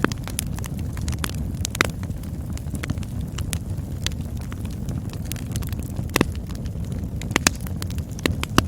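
Campfire burning, a steady low rumble of flames with scattered sharp crackles and pops, a few of them louder.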